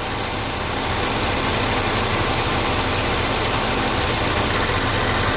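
Car engine idling steadily, heard close up at the engine cover, on a freshly changed set of spark plugs.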